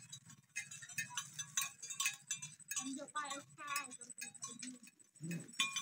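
A dog howling in short, wavering calls that rise and fall in pitch, most plainly about three seconds in.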